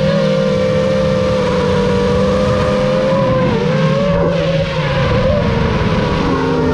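The motor and propeller of an FPV gyro running steadily at a high pitch, with the pitch dipping and wavering about halfway through before settling again.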